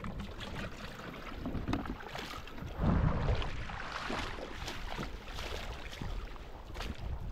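Water splashing and sloshing in irregular strokes, with a louder surge about three seconds in.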